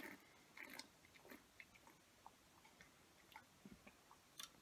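Faint wet mouth clicks and lip smacks of a person tasting a sip held in the mouth, short scattered clicks over near silence.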